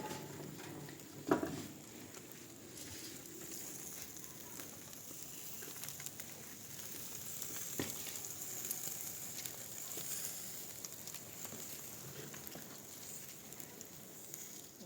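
Steady sizzling, crackling hiss from the bread-baking fire, with one sharp knock about a second in and a fainter click near the middle.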